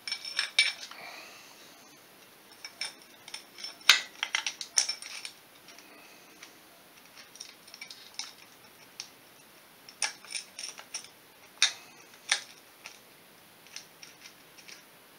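Steel timing chain and cam sprocket of a Polaris 500 engine clinking as they are worked into place by hand. Scattered sharp metal clicks come in clusters, the loudest about four seconds in.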